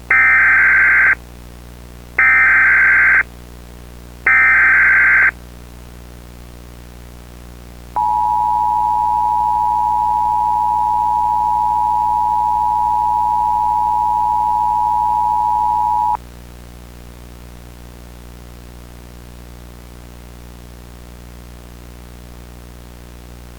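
Emergency Alert System broadcast opening: three SAME header data bursts, each about a second long with a second's gap between them, then the two-tone attention signal held steady for about eight seconds, over a constant low hum. The sequence signals the start of a new alert message.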